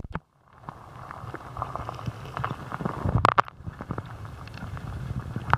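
Shallow creek water splashing and sloshing as a hand reaches in to pick an object off the bed, with a louder splash a little over three seconds in. A low steady rumble and small clicks run underneath, after a moment of silence at the start.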